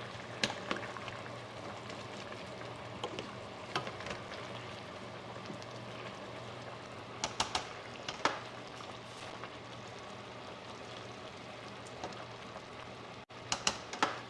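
Food cooking on the stovetop with a steady sizzling hiss, broken by several sharp clinks of kitchenware.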